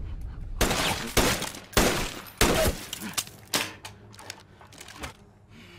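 A rapid series of loud rifle shots, about two a second, fired through a wooden door, with fainter cracks and thuds near the end.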